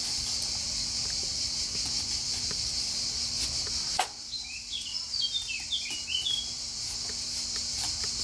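Steady high-pitched drone of insects, with a run of quick bird chirps around the middle. A knife slicing a red onion taps on a cutting board, sharpest once about four seconds in.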